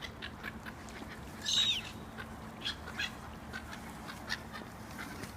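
Gulls calling: one loud, harsh, falling call about one and a half seconds in, then a few short faint calls.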